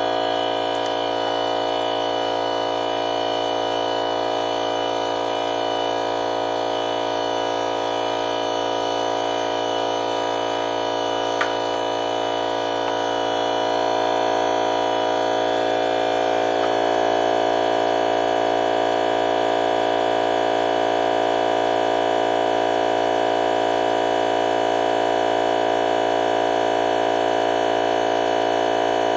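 DeWalt FLEXVOLT 60V cordless 2.5-gallon air compressor running steadily, pumping its tank back up to 135 psi. It gets slightly louder about halfway through, and there is one sharp click about eleven seconds in.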